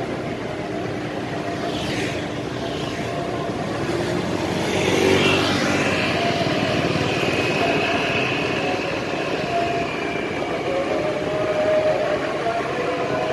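Road vehicle noise: a steady rush of engines and tyres, swelling briefly about five seconds in as a vehicle passes.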